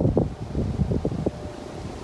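Wind buffeting the microphone: uneven low rumbling gusts with no siren sounding.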